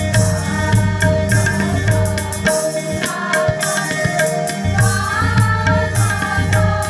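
A large group of women singing together, with a drum beat and a steady held note underneath.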